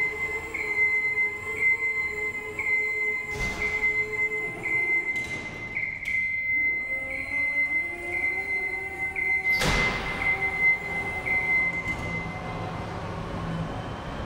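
Genie GS-2632 electric scissor lift driving: its motion alarm beeps about once a second over the whine of the electric drive, which rises in pitch midway. Two clunks are heard, the louder about ten seconds in, and the beeping stops near the end.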